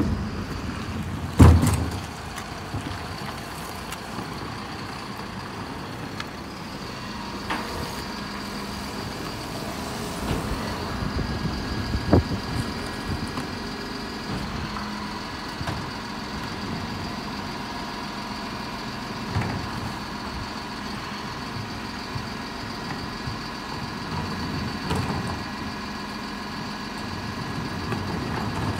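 Mercedes-Benz Econic bin lorry running with a steady whine, with a loud bang about a second and a half in and a sharper knock near the middle.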